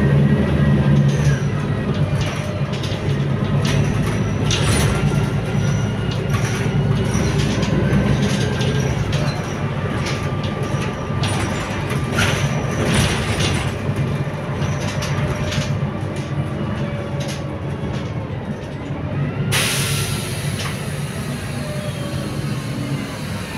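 Inside a Mercedes-Benz Conecto O345G articulated diesel bus under way: steady engine drone with a whine that rises and falls, and rattling from the cabin fittings. About twenty seconds in comes a sudden hiss of compressed air.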